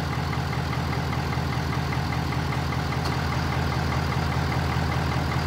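Ford Super Duty's 6.7-litre V8 turbo-diesel idling steadily with an even ticking over the low engine note, the air conditioning running while the system takes a refrigerant charge.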